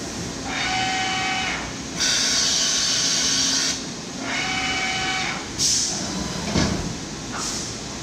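Mazak AJV-60/80 twin-pallet vertical machining center running under power: a motor whine twice, each about a second long, with a loud hiss of air of about two seconds between them, then short hisses and a knock.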